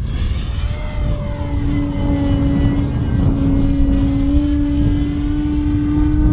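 Electric motor and propeller of an E-flite Extra 300 3D RC aerobatic plane in flight, holding a steady pitch that edges higher near the end. Wind rumbles on the microphone underneath.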